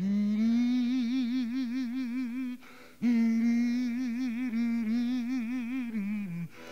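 A man's voice humming, unaccompanied: two long, wavering notes with a wide vibrato. There is a short break about two and a half seconds in, and the voice fades out near the end.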